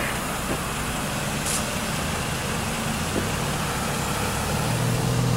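Vehicle engines idling with a steady low hum, which grows louder about four and a half seconds in as another engine draws near.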